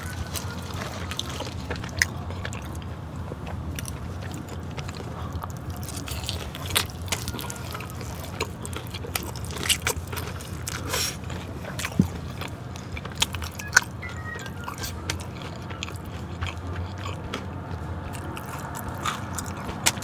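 Close-miked eating: bites and chewing of sauce-coated Korean spicy fried chicken, with sharp crunches every second or few over a steady low hum.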